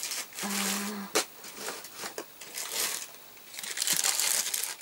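Paper crinkling and rustling as a small paper envelope is handled, with a sharp click about a second in and a louder spell of crinkling near the end.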